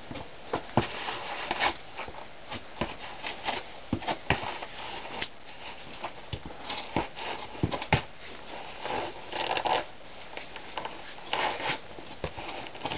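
Hiking boots and clothing scuffing and scraping against sandstone walls as a climber works his way down a narrow rock chute: scattered short scrapes and knocks, with a couple of longer rustling scrapes about two-thirds of the way through.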